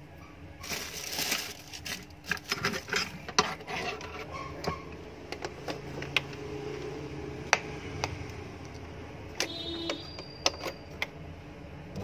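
Hands handling and twisting loose electrical wires: rustling and a string of small clicks and taps, thickest in the first few seconds and then scattered, over a faint steady hum. A brief pitched tone sounds near the end.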